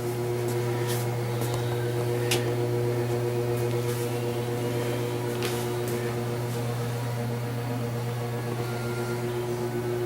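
A steady mechanical hum with a few light clicks and taps scattered through it.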